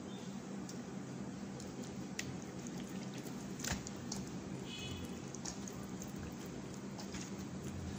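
A hand squishing thick yogurt marinade into a whole raw chicken in a steel bowl: faint wet squelching with scattered small clicks, over a steady low hum.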